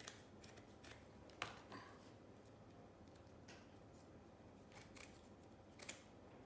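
Scissors cutting round a square piece to make it fit a round tray: a few faint, sharp snips spaced a second or more apart.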